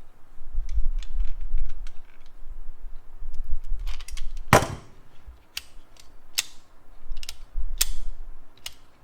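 Metal hand pliers and wrenches clicking and clacking as they are handled, with one louder clack about halfway through and a string of lighter clicks after it.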